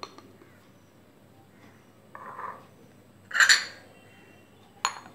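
White ceramic saucers being set down as lids on glass bowls: a soft knock a little after two seconds in, a louder clink of china on glass about three and a half seconds in, and a short sharp click near the end.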